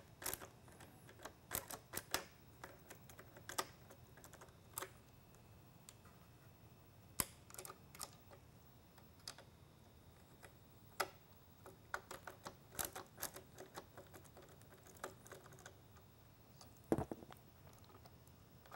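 Faint, irregular clicks and ticks of a hand screwdriver backing out Phillips-head screws from a lightbar module's metal mounting bracket, mixed with the handling of the plastic module, and one louder knock near the end.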